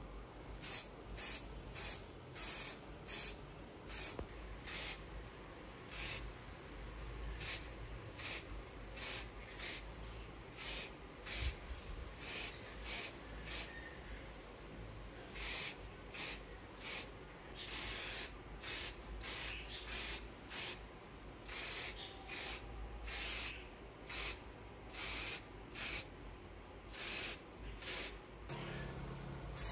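Aerosol spray can hissing in many short bursts, about two a second, with a few longer sprays in the second half, as it coats small telescope parts.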